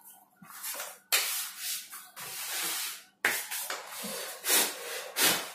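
Rubbing and scraping as a 2.1 home theater's subwoofer cabinet is gripped and slid round on a tabletop. It starts abruptly about a second in, with a brief break about three seconds in before it resumes.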